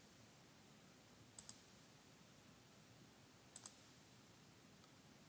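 Computer mouse button clicked twice, about two seconds apart, each click a quick double tick of press and release, over near-silent room tone.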